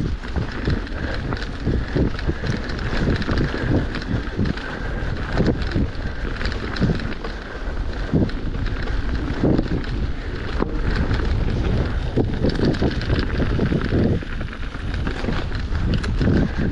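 Mountain bike riding over a dirt and leaf-litter forest trail: tyres rolling and crunching over the ground, and the bike rattling and knocking over bumps, with wind buffeting the microphone.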